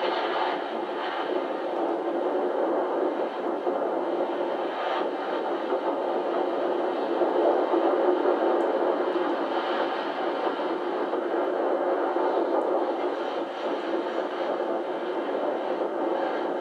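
Steady running noise of a steam-hauled passenger train heard from an open carriage window, wheels and carriages rolling along the track. The sound is thin and cut off at the low and high ends, as from an old video tape played back through a TV speaker.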